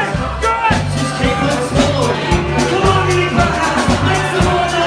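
Loud upbeat music with a steady beat and a repeating bass line.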